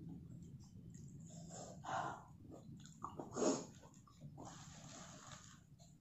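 A person's quiet breathing: two short breaths or sniffs, then a longer breathy exhale lasting about a second.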